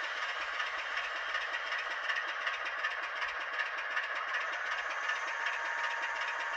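Recorded sound of a British Rail Class 25's Sulzer six-cylinder diesel engine, played by a DCC sound decoder through the tiny sugar-cube speaker of an N gauge Farish Class 25 model as it creeps along. It runs steadily with an even pulsing beat and comes out thin, with almost no bass.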